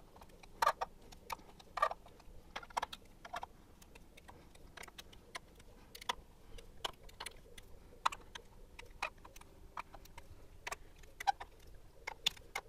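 Irregular small metal clicks and ticks, a few a second, from a folding hex key working the screws that hold a loudspeaker's mid-range driver in its wooden baffle.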